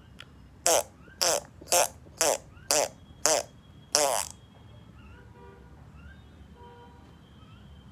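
Fart sounds, seven short buzzy blasts about twice a second, the last one longer, then they stop.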